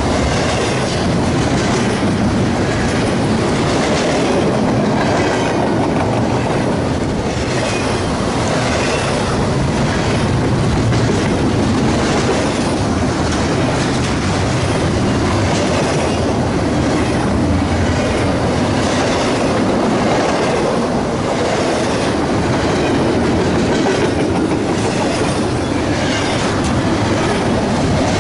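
A train passing close by, its cars rolling steadily over the rails with a clickety-clack of wheels on the track and some wheel squeal.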